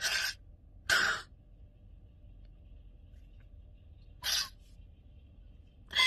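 A woman crying: four short, sharp sobbing breaths through the hand over her mouth, with quiet between them.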